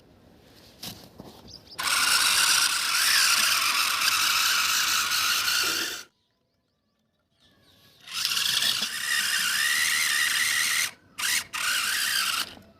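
Toy tractor's small electric motor and plastic gears running with a grinding whir, in two stretches of about four seconds each. Each stops abruptly, with complete silence between them.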